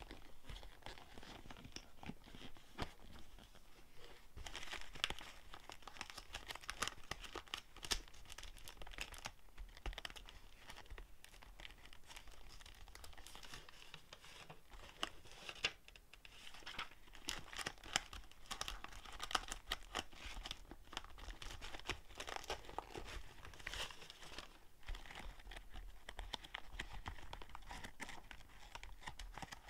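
Sheets of paper rustling and crinkling as they are lifted and flipped through in the pockets of a leather accordion file, a dense run of small crackles and rustles.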